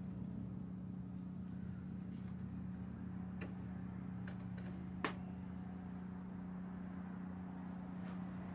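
Steady low mechanical hum with one constant tone, and a few faint clicks, the sharpest about five seconds in.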